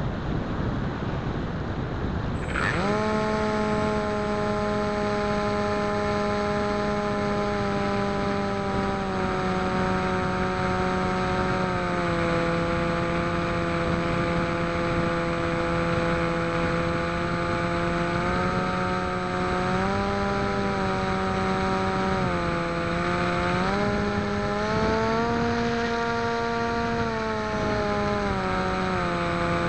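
Wind rushing over the flying wing's onboard camera microphone, then about two and a half seconds in the electric motor and propeller spin up quickly to a steady, high buzzing whine. The pitch steps down and back up several times as the throttle is changed in flight.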